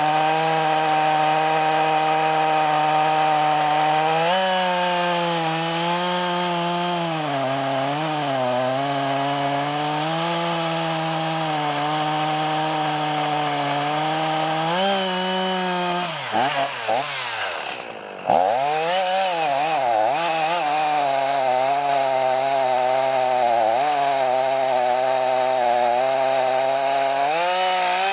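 Echo CS-4910 two-stroke chainsaw running at high speed, its pitch repeatedly dipping and recovering as the load on it changes. About two-thirds of the way through it swings quickly up and down and briefly drops in level, and it wavers again near the end.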